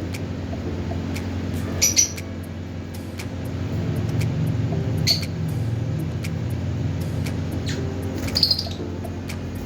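Lovebirds giving a few short, sharp chirps a few seconds apart over a steady low hum.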